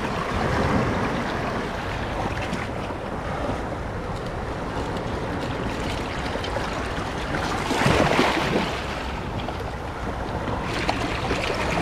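Sea surf washing and sloshing between the rocks of a tide pool, with a bigger wave surging in about eight seconds in.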